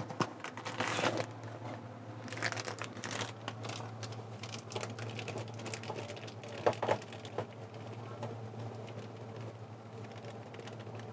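Light kitchen handling noises: scattered small clicks and knocks with some crinkling, over a steady low hum.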